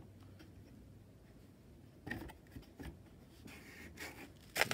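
A thick cardboard box being handled and closed by hand. After a quiet start come light knocks and rubbing of cardboard against cardboard as the lid is slid into place, then one sharper knock near the end.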